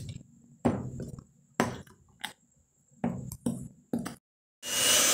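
A handful of separate knocks and taps from work in a glass mixing bowl of flour. After a brief cut near the end, an electric hand mixer starts and runs steadily.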